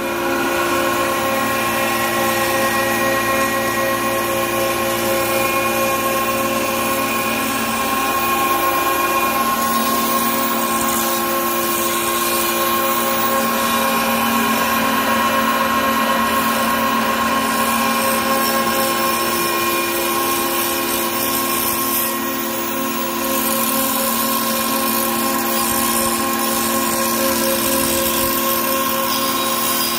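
A 10 hp ultra-fine impact pulverizer (hammer mill) running at steady speed: a continuous hum and whine that holds several unchanging tones.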